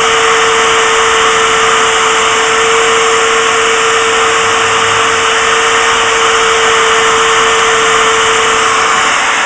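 Router spindle of a DIY CNC machine running steadily while milling aluminium plate: a loud, even hiss with one steady tone held through it.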